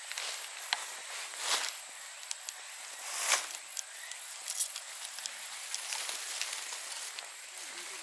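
Bamboo-grass leaves rustling and brushing in short bursts as a hand pushes through them, loudest about three seconds in, with scattered small clicks. Behind it runs a steady high insect chirring.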